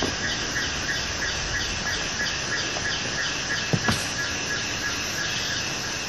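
Forest insects calling in a steady chorus, with a high hiss that pulses about three times a second over a steady thin whine. A couple of sharp knocks come close together a little under four seconds in.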